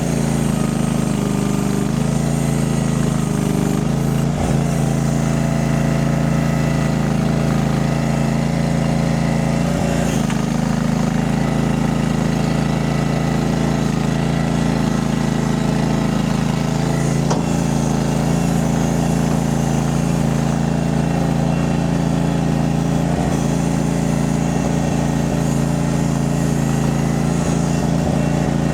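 Small engine of a mini skid steer running steadily at a constant speed, with a few faint knocks.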